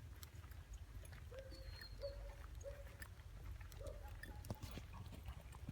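Faint short, flat-pitched animal calls, about five of them spaced irregularly over a few seconds, over a steady low rumble, with a few light clicks near the end.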